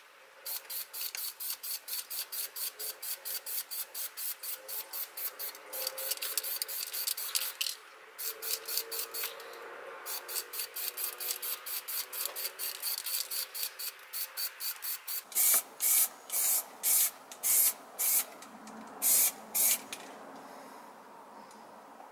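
Aerosol spray-paint can hissing in many short bursts, about five a second, as canary-yellow paint goes onto a hatchet handle. Near the end the bursts are louder and fewer, about two a second.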